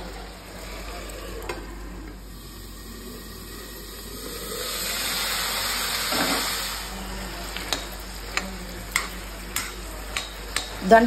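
Ivy gourds frying in a tempering of hot oil in a kadai, a steady sizzle that swells louder about halfway through. Near the end a metal spatula clicks and scrapes against the pan as the gourds are stirred.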